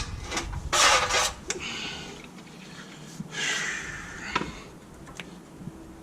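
Hand work on a Toyota Land Cruiser front brake caliper while freeing a stuck brake pad: two short noisy bursts, about a second in and again around three seconds in, with scattered metallic clicks and knocks.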